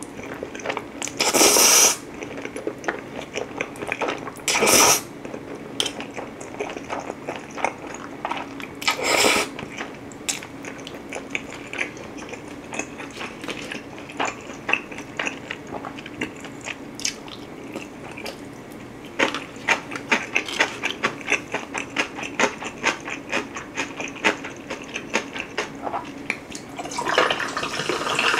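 Close-miked eating of cheese oven spaghetti: three loud slurps in the first ten seconds, then steady chewing with many sharp wet mouth clicks, thickest in the second half. Near the end, cola is poured from a plastic bottle into a glass of ice, fizzing.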